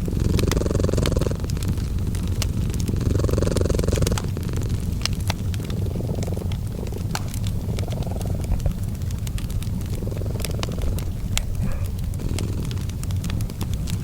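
Cat purring in a steady low rumble that swells in waves every two to three seconds, mixed with a wood fire crackling in scattered sharp pops.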